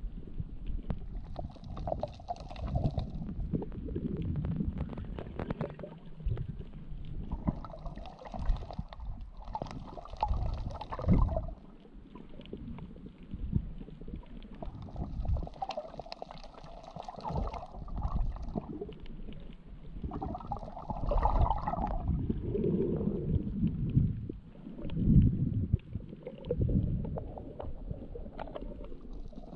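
Muffled underwater rumbling and gurgling of water moving around a submerged camera, with short bursts of hissing every few seconds.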